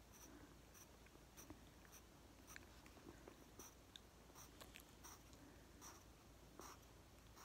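Faint pencil strokes scratching on a sketchbook page: short, irregular scratches as small scale shapes are drawn.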